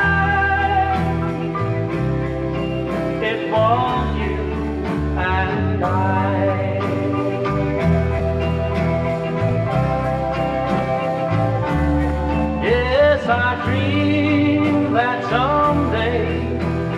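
Music: a 1962 ballad recording in a passage without lyrics, a melody line sliding between notes over a steady bass and backing accompaniment.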